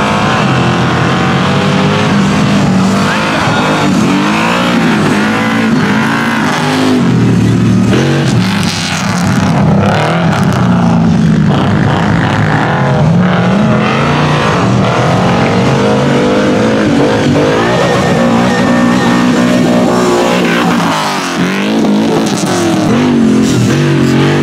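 Rock bouncer buggies' engines revving hard as they race around a dirt motocross track, the pitch rising and falling over and over with throttle and gear changes.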